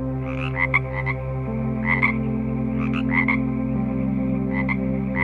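Frog croaking in short calls, often in pairs, repeating about every second, over a steady low background drone.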